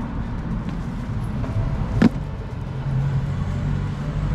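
Steady low mechanical hum, with one sharp knock about two seconds in.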